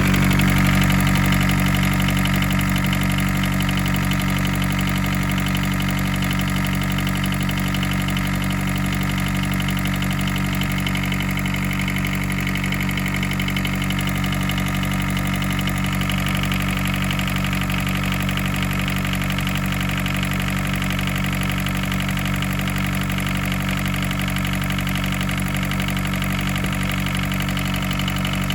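1981 Isuzu Pup's C223 four-cylinder diesel engine idling steadily while it warms up.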